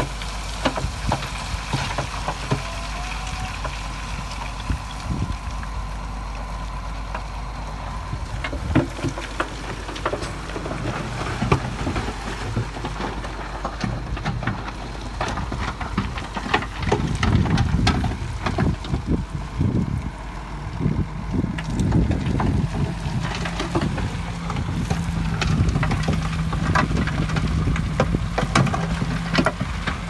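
Heavy diesel construction machinery working: a steady engine hum with many knocks and clatters, growing louder and rougher a little past halfway, then settling into a steady drone.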